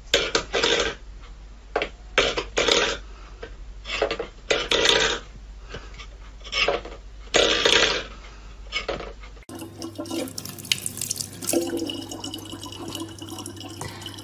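A stainless steel bowl scraping and clattering on a wooden floor as a cat paws it, in short bursts about once a second. About nine and a half seconds in it changes to a thin stream of tap water running into a plastic bottle, with a steady low hum.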